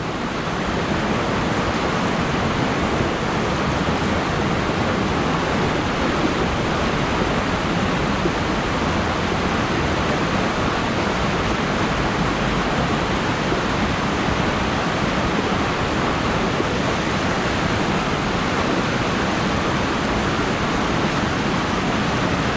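Steady rush of whitewater through river rapids, an even roar that holds without change.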